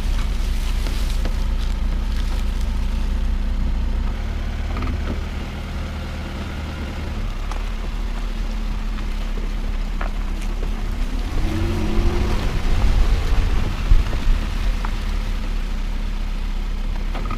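Road noise from a 2009 Nissan Altima Hybrid's front tyre rolling over a leaf-covered dirt track: a steady low rumble with a few sharp ticks of grit and debris. A brief rising whine comes about two-thirds through, and some louder knocks follow near the end.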